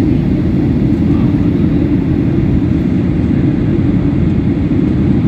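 Jet airliner cabin noise in flight, heard from a seat by the window: a steady low rumble that does not change.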